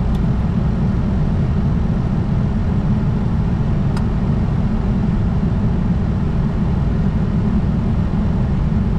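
Steady low rumble of cockpit noise in a Falcon 900C business jet in flight, airflow and engines blended into one constant roar. There is a faint click about four seconds in.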